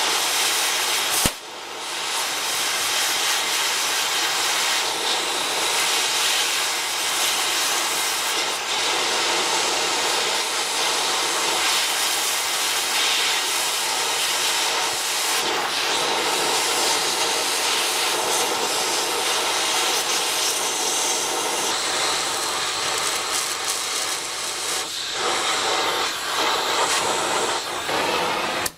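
Oxy-acetylene cutting torch hissing steadily as it blows a seized, broken-off bolt out of its threaded hole, with a sharp pop about a second in. The hiss stops abruptly at the very end.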